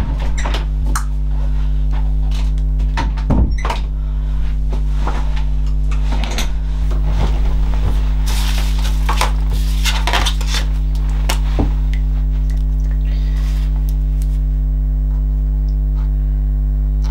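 Paper, card and plastic packaging being handled at a desk: a run of small rustles, taps and clicks that thins out after about twelve seconds. A steady low hum runs underneath throughout.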